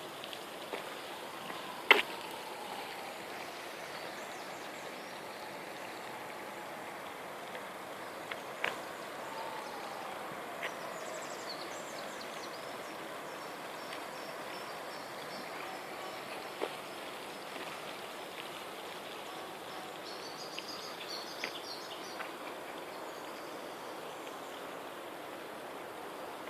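Outdoor ambience in a garden: a steady hiss of background noise with short bursts of high bird chirps twice and a few sharp clicks.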